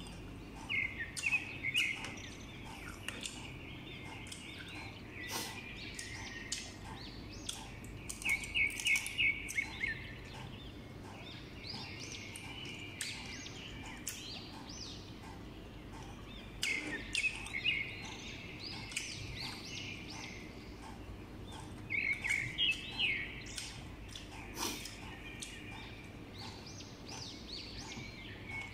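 Chewing and crunching of sour green mango slices with small wet clicks, while a bird chirps in short bursts of rapid notes every several seconds.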